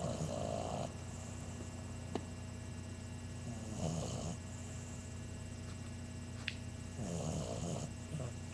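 An 11-week-old English bulldog puppy snoring in his sleep: three snores, one about every three and a half seconds.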